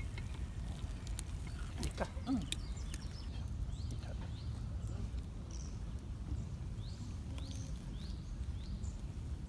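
Small bird chirping: a run of short, high, upward-sweeping calls repeated about once or twice a second, over a steady low rumble of wind. A few sharp clicks come in the first couple of seconds.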